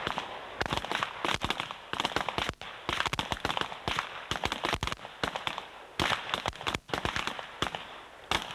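A line of pistol shooters firing at once in the prone position: dozens of shots in an irregular, rapid crackle, some overlapping, some near and loud, with brief gaps now and then. This is a timed field-pistol series fired by the whole squad together.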